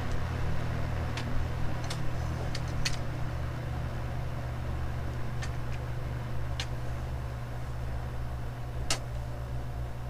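Vintage Eskimo Model 12106 box fan, freshly oiled, running on its lowest speed with a steady low motor hum. A few short sharp clicks come at scattered moments, the loudest near the end.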